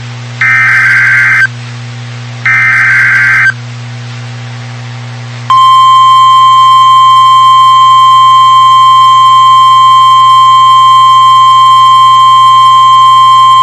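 Emergency alert SAME header data bursts: the last two of three harsh, warbling one-second screeches about a second apart. After a two-second pause, about five seconds in, NOAA Weather Radio's steady single-pitch 1050-hertz warning alarm tone begins and holds, the signal that a new warning, here a tornado warning, is about to be read.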